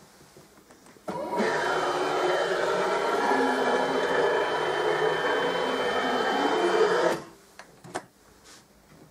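Home-built UV flatbed printer converted from an Epson R1400, running a motor-driven feed that carries the platen tray along its rails. It is a loud mechanical whir with shifting pitch. The whir starts about a second in and stops about two seconds before the end.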